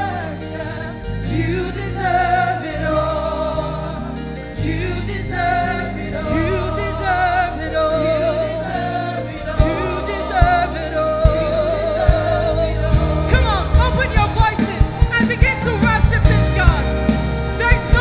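Live gospel worship song: singers with vibrato over keyboards and bass. Drum hits come in about halfway through and grow busier toward the end.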